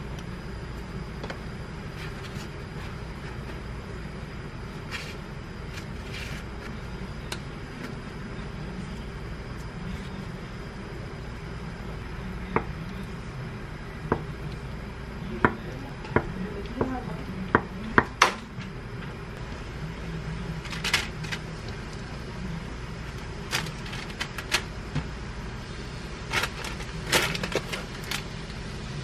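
Kitchen knife cutting a block of tofu on a wooden cutting board: a run of sharp taps as the blade meets the board, about a dozen over six seconds midway. Later, parchment paper crackles and light knocks as the tofu cubes are set in a metal air-fryer basket, over a steady low hum.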